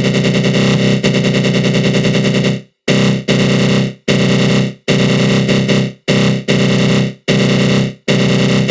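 Synthesized attack growl: a harsh, buzzing synth tone with a flanger sweep and a fast rattling flutter. About three seconds in it begins to cut out briefly, roughly once a second.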